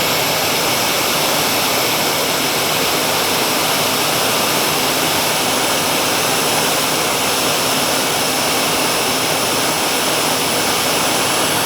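Four Ryobi electric pressure washers running together through one 9.5 nozzle: a loud, steady hiss of the water jet over the hum of the motors and pumps, holding at about 950–975 PSI.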